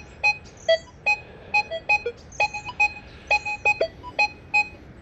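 Nokta Legend metal detector giving a string of short two-tone beeps, a few per second, as it is swept over an 1886 five-cent coin, which reads as about a 41.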